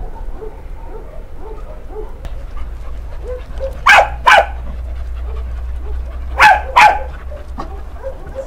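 Dogs barking: two quick double barks, one about four seconds in and another about two and a half seconds later, over softer repeated dog sounds.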